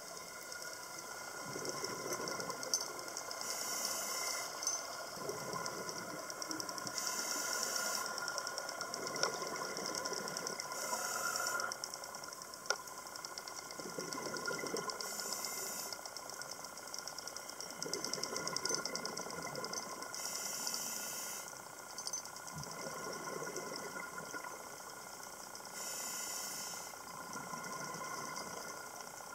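Scuba diver breathing through a regulator underwater: a hiss on each inhale and a gurgling rush of exhaled bubbles, repeating every four to five seconds, over a faint steady whine.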